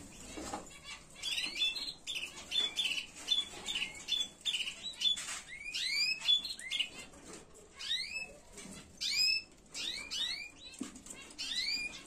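Caged canaries calling. A quick run of short, high, even notes comes in the first few seconds, then repeated rising chirps about once a second.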